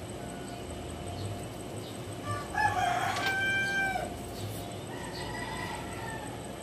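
A rooster crowing: one long, loud crow about two and a half seconds in, held for over a second, and a fainter, higher crow about five seconds in.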